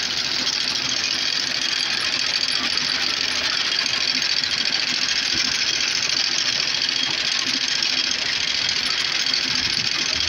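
A John Deere 790's small three-cylinder diesel engine running steadily, mixed with the rapid back-and-forth of a PTO-driven sickle bar mower's knife cutting grass.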